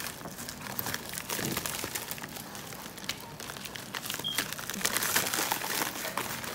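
Plastic shipping mailer bag crinkling and rustling as it is handled and opened by hand, in a dense run of irregular crackles.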